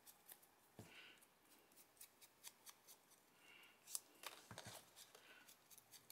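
Near silence with faint craft-handling sounds on paper: soft scattered ticks and light rubbing, with a slightly louder tap about four seconds in.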